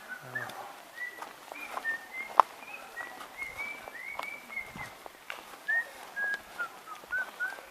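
Birds chirping outdoors: a string of short, high whistled notes that rise and fall, with scattered light clicks and one sharp click about two and a half seconds in.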